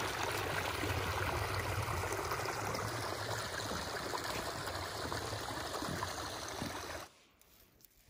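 Small snowmelt stream trickling, a steady running-water sound that cuts off suddenly about seven seconds in.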